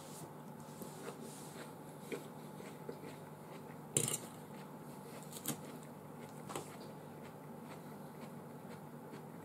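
Cutlery clinking against a dish during eating, about seven short light clinks, the loudest about four seconds in, over a faint steady hum.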